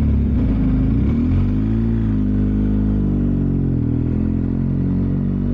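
BMW R1250GS Adventure's boxer-twin engine running under way, its revs dipping about a second in and picking up again, then holding fairly steady.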